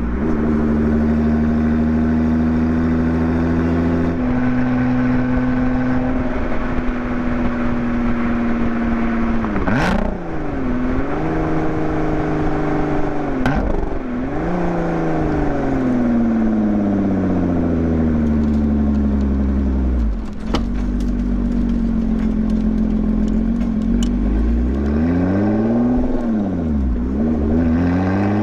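Lotus Exige 430 Cup's supercharged V6 running through its exhaust, the revs holding, dropping sharply and climbing again several times as if through gear changes, with one long slow fall in pitch. Sharp pops come at about ten and thirteen seconds and again around twenty seconds, followed by a short run of crackles from the exhaust on the overrun.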